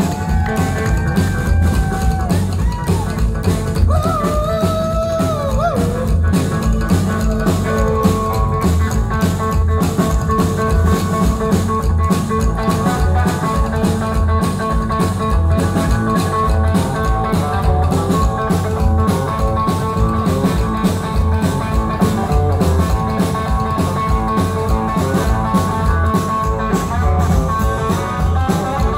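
Live rockabilly band playing loud: a hollow-body electric guitar riff with bent notes over a drum kit's steady beat and an upright bass.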